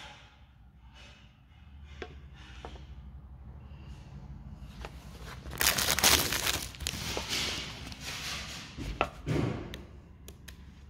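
Clear plastic packaging wrap crinkling and rustling as it is handled, loudest in a burst about six seconds in, with scattered clicks and taps.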